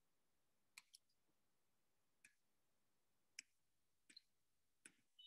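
Near silence broken by about six faint, scattered clicks of a computer mouse.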